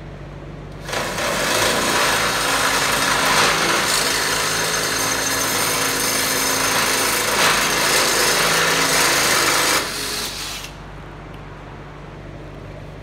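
Cordless drill boring a 3/8-inch guide hole through the Jeep's body sheet metal, starting about a second in, running steadily for about nine seconds, then winding down.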